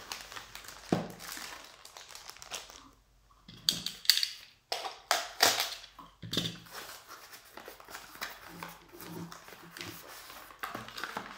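Packaging crinkling and rustling as hands rummage inside a cardboard shipping box, in irregular bursts that are loudest around the middle.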